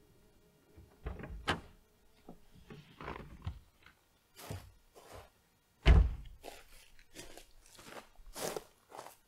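A Subaru Forester's door shutting with a heavy thunk about six seconds in. Around it are scattered knocks, clicks and footsteps on gravel.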